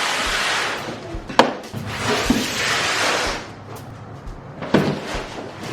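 Music with a low beat about once a second, two swells of hissing, whooshing noise, and two sharp knocks.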